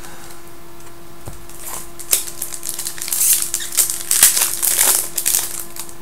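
Foil trading-card pack wrapper crinkling and crackling as it is handled and opened, a dense run of sharp crinkles in the middle seconds.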